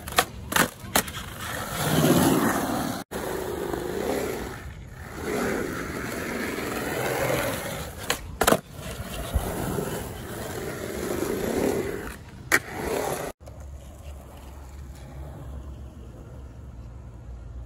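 Skateboard wheels rolling over concrete, broken by several sharp clacks as the board pops and slaps down: a few just after the start, one about eight seconds in and one near twelve seconds. The last few seconds are quieter, with only a steady low hum.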